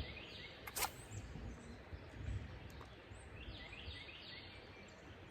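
Quiet streamside ambience: a low steady rumble with a bird calling in two runs of short, quick notes, once near the start and again about four seconds in. A single sharp click sounds about a second in.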